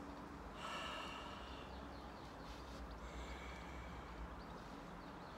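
Faint outdoor ambience: distant birds calling over a low steady rumble, with the calls clearest about a second in.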